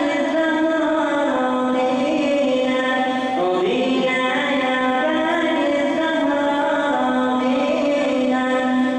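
Unaccompanied singing or chanting: long held notes that glide from one pitch to the next, with no beat or instruments.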